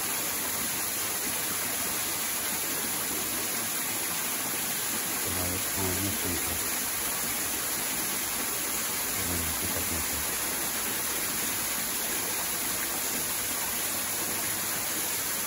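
Small stream running over rocks: a steady rush of flowing water.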